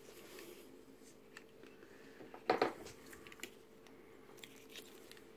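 Hard plastic model-kit parts clicking as they are handled and worked loose: a sharp double click a little over two seconds in, then a few light ticks.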